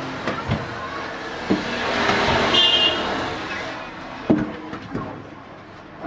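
Street traffic passing, swelling and fading, with a brief horn toot near the middle. Over it come several sharp knocks of a rolling pin on a wooden dough board.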